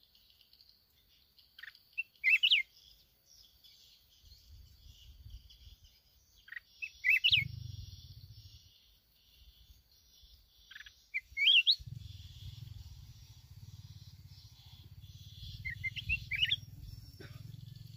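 Red-whiskered bulbul singing: short, bright whistled phrases, four in all, about every four to five seconds, over a faint steady high hiss. A low rumble sits underneath from about four seconds in.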